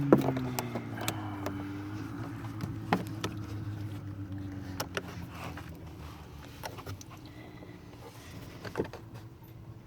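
Scattered sharp plastic clicks and knocks as the cabin air filter cover and filter are worked loose from their housing behind the glove box. A low hum fades away under them.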